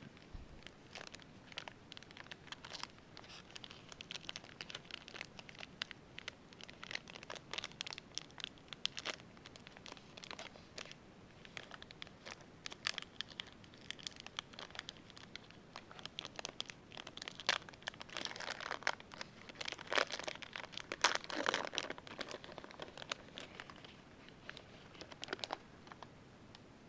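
Foil wrapper of a trading-card pack crinkling and tearing as it is handled, with many small clicks and rustles of cards. The crinkling is densest about two-thirds of the way through.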